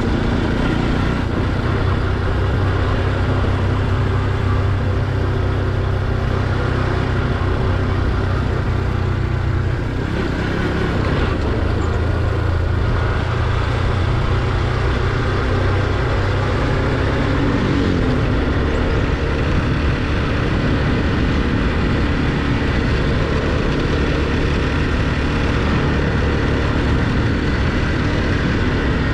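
Motorcycle engine running steadily under way: a continuous low drone with a steady rush of noise over it, briefly dipping in loudness about ten seconds in.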